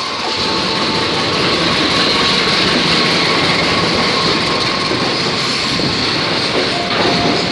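A CC 206 diesel-electric locomotive passes close by hauling a container freight train. The engine and rail noise swells during the first second, then stays loud and steady as the locomotive and then the container wagons go past.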